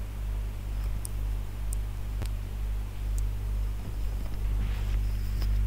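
Steady low electrical hum under a faint hiss, with a few faint clicks.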